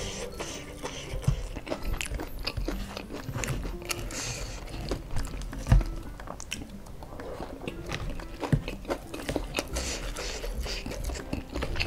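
Close-miked chewing with many short, sharp crunches of crispy fried chicken and kremes crumbs eaten by hand, the loudest crunch about six seconds in.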